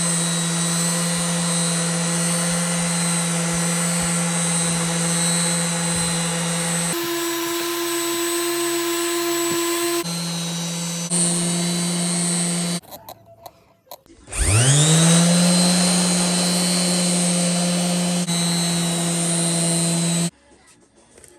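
Power sander running steadily while sanding a cured epoxy resin surface. It stops briefly, then spins back up with a rising whine and runs on until it cuts off near the end.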